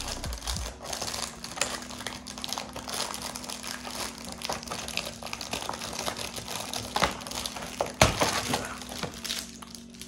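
Crinkling and rustling of plastic and cardboard packaging being handled as a compartment of a tackle advent calendar is opened, with a sharper crackle about eight seconds in.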